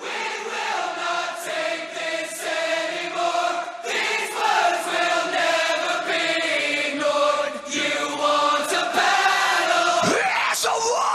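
Background music: a choir singing long, sustained chant-like notes, with a falling swoop about ten seconds in.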